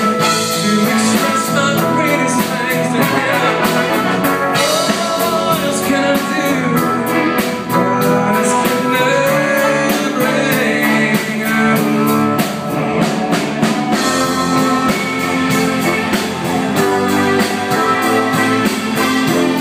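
Live worship band playing: electric guitar, drum kit and singing, loud and continuous, recorded on a phone.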